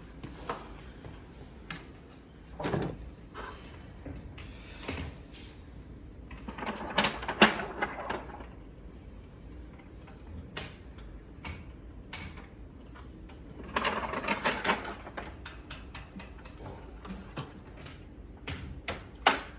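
Scattered knocks, clicks and clattering from hands-on installation work, with two busier spells of handling about seven and fourteen seconds in.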